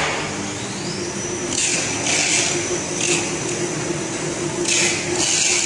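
EPE foam laminating machine running: a steady hum with a constant high whine, broken by about five short bursts of hiss.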